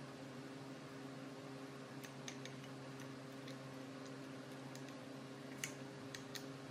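A steady low mechanical hum with a few scattered light clicks and ticks, the loudest about five and a half seconds in.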